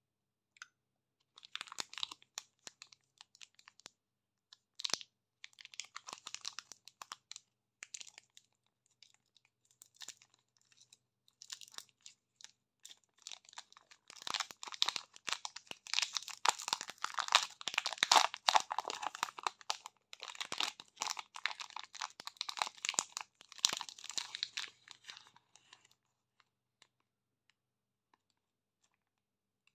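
Plastic wrapper of a Joy Nut chocolate-covered dessert bar crinkling and tearing as it is opened by hand close to the microphone. Scattered crackles build to dense, loud crinkling in the middle and stop a few seconds before the end.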